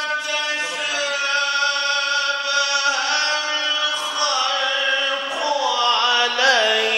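A man reciting the Quran in the ornamented, melodic tajweed style, holding one long drawn-out vowel on a steady pitch that wavers and turns up and down in melisma over the last couple of seconds.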